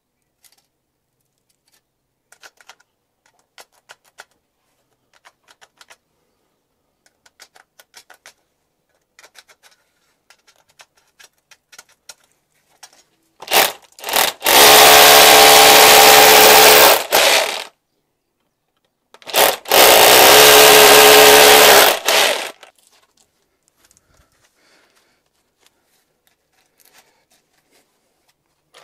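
Cordless hammer drill boring two fixing holes into a brick wall, each run lasting about three to four seconds, the second starting a couple of seconds after the first stops. Light clicks and knocks of a spirit level and a metal bracket being handled come before the drilling.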